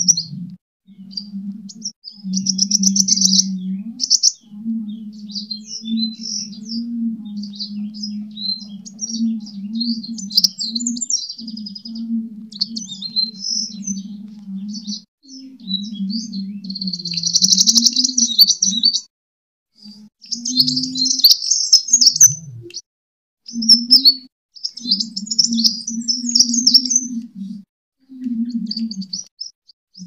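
Sunbird singing its fast, chattering fighting song of high twittering chirps, in phrases broken by short pauses, over a low hum.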